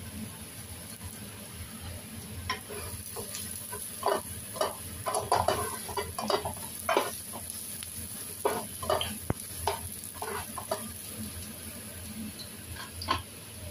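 Spatula stirring and scraping chopped garlic and ginger around a nonstick frying pan, the pieces sizzling lightly in the oil. The strokes come in an irregular run from a couple of seconds in until near the end, with one more just before the end.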